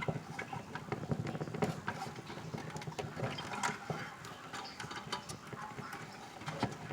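Irregular small clicks, knocks and rustles of handling: a gas furnace's control board and its wiring harness being pushed and worked loose from the board's mounting channel.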